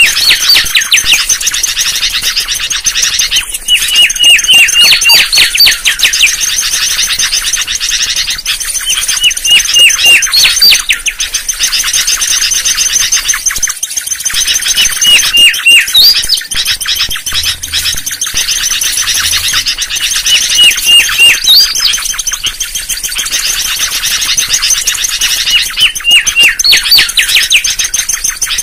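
Mangrove whistler song: phrases of several quick whistled notes repeated every few seconds, some phrases ending in a sharp upward-sweeping whistle, over a steady high hiss.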